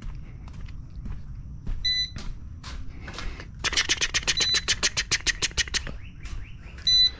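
A short electronic beep from RC gear, repeating about every two and a half seconds. In the middle comes a rapid run of sharp clicks, about a dozen a second for some two seconds, over a low handling rumble.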